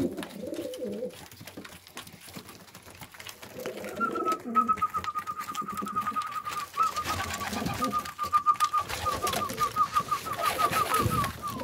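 Homing pigeons at a grain feeder: low cooing and the clicking of beaks pecking seed. From about four seconds in, a long run of rapid, high, thin peeps, several a second, goes on steadily.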